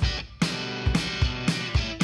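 Background music with strummed guitar and a drum kit keeping a steady beat.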